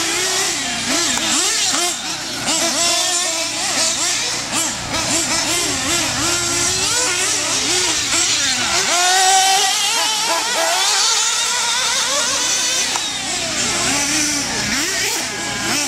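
Several 1/8-scale nitro RC truggies racing, their small two-stroke glow engines buzzing and revving up and down. The overlapping engine pitches rise and fall constantly as the trucks accelerate and back off.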